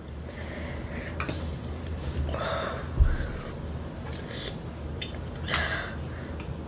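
People eating spicy noodles at a table: two short noisy mouth sounds, about two and a half and five and a half seconds in, and a soft thump near the three-second mark, over a steady low hum.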